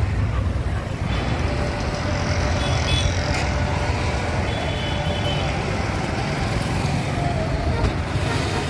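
Road traffic: cars and motorcycles driving past in a steady rumble.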